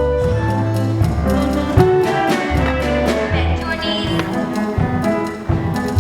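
Instrumental passage of a musical-theatre song: strings over a bass line of held low notes that change about every half second, with no singing.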